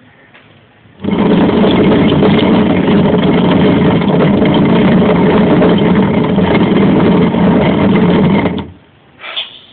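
Hand-turned stone quern grinding grain: a steady, loud stone-on-stone grinding rumble that starts about a second in and stops shortly before the end.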